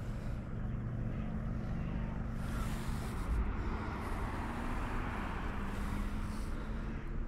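Steady low hum of a distant engine over a soft, even wash of wind and water noise.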